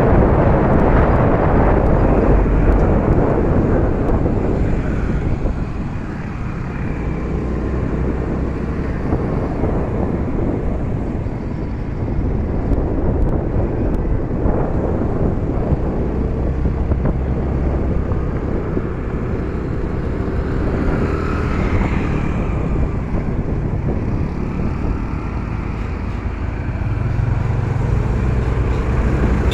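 Motor scooter riding along a road: wind rushing over the microphone and the scooter's engine running steadily, with the noise of surrounding traffic. The low rumble grows louder near the end as the scooter draws alongside a tractor and its trailer.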